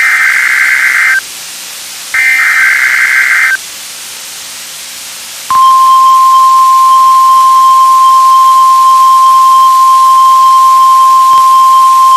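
NOAA Weather Radio weekly test tones: the last two of the three SAME digital header bursts, harsh warbling screeches about a second and a half long each with radio hiss between. About five and a half seconds in, the steady 1050 Hz warning alarm tone begins and holds.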